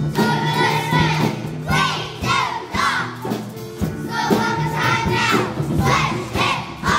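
Young children singing together over a recorded musical backing track.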